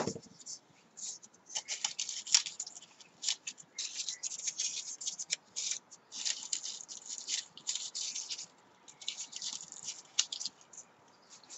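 Paper flower petals crinkling and rustling as fingers press and scrunch them into shape, in short, irregular bursts. It opens with a single sharp knock.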